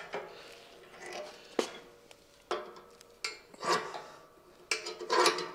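Steel welding clamps being set on the press brake's steel bed and screwed tight: a string of sharp metal clinks and knocks, some ringing briefly, with scraping between them.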